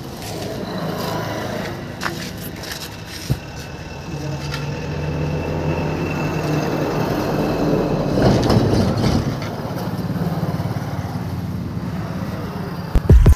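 A motor vehicle's engine running steadily, with a louder swell of noise about eight seconds in. Music comes in loudly near the end.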